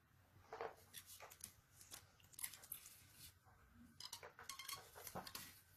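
Faint scattered clicks and rustles of hands handling a rubber band and thermocol (polystyrene foam) pieces on a cloth-covered table.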